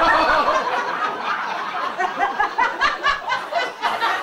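A live audience laughing together, loudest at the very start and then easing off a little.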